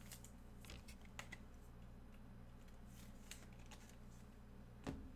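Faint scattered clicks and light taps of trading cards and plastic card holders being handled, with one sharper knock near the end.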